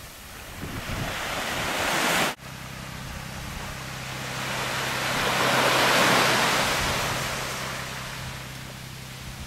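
Small waves washing up a sandy beach: one wash swells and breaks off suddenly about two seconds in, then another swells to its loudest about six seconds in and fades away. A steady low hum runs underneath after the break.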